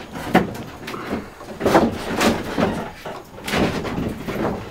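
Plywood boards and a plastic folding table being shifted about against wooden shed walls, with a handful of irregular knocks and scrapes.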